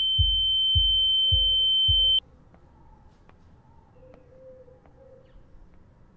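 A steady, piercing electronic sine tone over low heartbeat-like thuds coming a little under twice a second. Both cut off abruptly about two seconds in, leaving only faint ambience.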